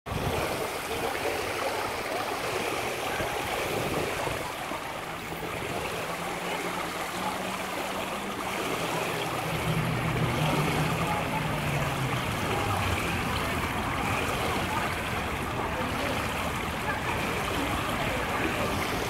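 Steady rush of swimming-pool water, lapping and running, with a faint low hum in the middle.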